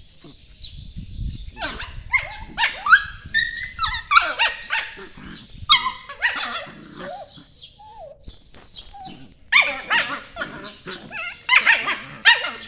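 Two puppies play-fighting, yelping and yapping in short high-pitched cries that come in several flurries, with a lull in the middle.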